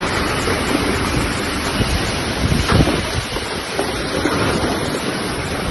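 Storm wind and heavy rain, a dense, steady rushing noise, with gusts buffeting the microphone in low thumps.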